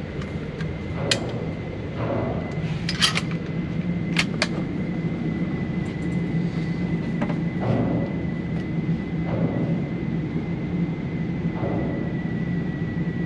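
Indoor shooting range background: a steady low rumble with a thin steady high-pitched tone over it. A few sharp clicks and knocks come about one, three and four seconds in.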